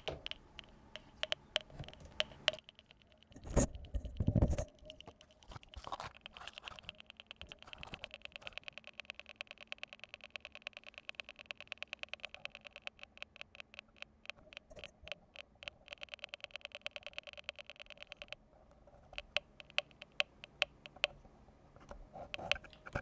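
Tiny 8-ohm speaker driven by a cheap soldered oscillator kit, putting out a quiet train of clicks with a faint tone. The clicks run fast and even for about ten seconds in the middle and come sparser near the start and end. A couple of heavier handling thumps come about four seconds in.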